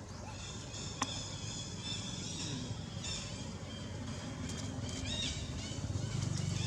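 Baby monkey crying with repeated high-pitched squeals, over a low steady rumble that grows louder near the end.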